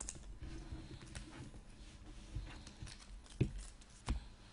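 2018 Panini Phoenix football cards being handled and flipped through by hand: soft rustling and light taps of card against card, with two sharper knocks near the end as cards are set down on the stack.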